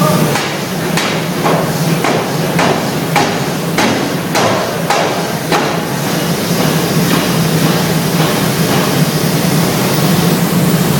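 Steam forging hammer pounding a red-hot steel billet in rapid, evenly spaced blows, about two a second, which stop about six seconds in. A steady low hum runs underneath.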